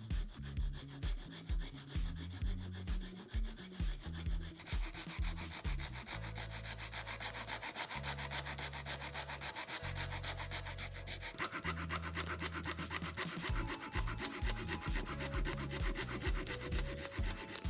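Rapid sanding strokes, rubbing continuously, over background music with a steady bass beat.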